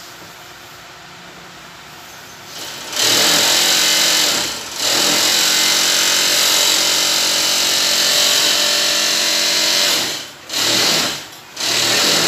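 Woven sack bag making machine's sewing head stitching red woven polypropylene fabric. It starts up about three seconds in and runs at a steady high speed, pausing briefly once soon after and twice in quick succession near the end, restarting each time.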